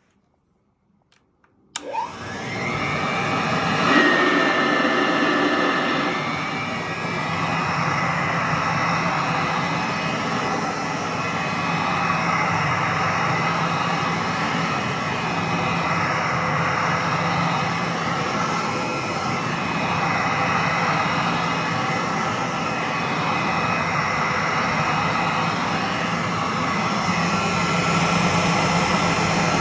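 1938 Singer R4D vacuum cleaner switched on about two seconds in, its motor whining up to speed and then running steadily.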